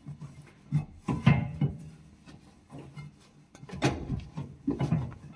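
Rubbing and wiping strokes on a metal stove cover as it is being cleaned, coming in a few short rough bursts with a quieter stretch in the middle.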